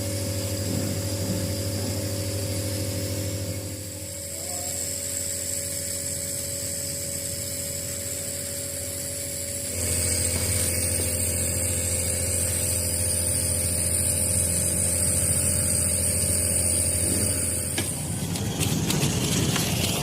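Steady mechanical hum with a low drone, its character shifting abruptly about four seconds and again about ten seconds in.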